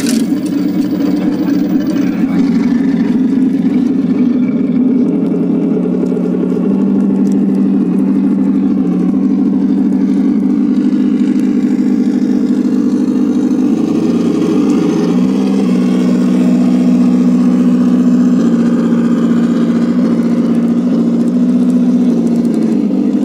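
Large-scale radio-controlled model Sherman tank driving, with a steady engine-like drone that shifts pitch a few times as it manoeuvres.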